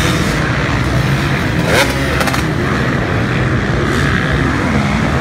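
Motocross dirt bike engines running hard as riders climb a hill, with one rev rising sharply about two seconds in.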